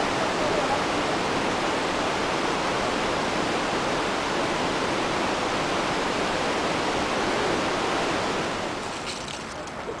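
Steady roar of rushing water from the Iguazu Falls, dropping lower about a second before the end.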